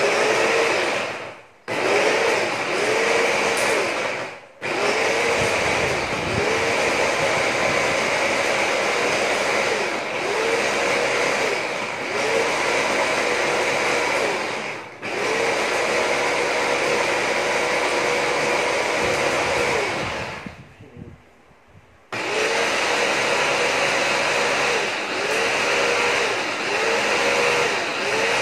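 Electric food chopper with a stainless-steel bowl running under hand pressure on its top, its motor whine wavering up and down as it churns. It stops briefly a few times and once for over a second before running on.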